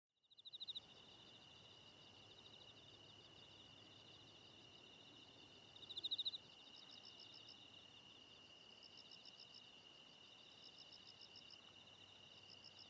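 Faint chorus of chirping insects: a steady high-pitched trill with rapid pulsing chirps layered over it. The chirps swell briefly just after the start and again about six seconds in.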